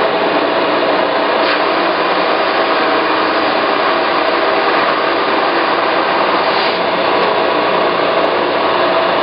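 Timesaver 50-19M 18-inch wide belt grinder/sander running with a flat workpiece carried through on its conveyor. The abrasive belt grinds steadily across the part's surface, sanding it in one pass.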